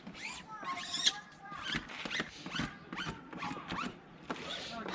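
White transfer paper being peeled off a freshly applied vinyl decal on an RV's back wall, a run of short ripping and squeaking sounds as the paper comes away from the sticker.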